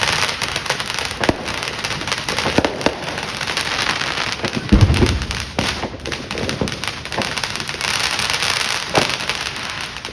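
Fireworks going off: a continuous dense crackling with many sharp pops, and one loud, low boom a little under halfway through.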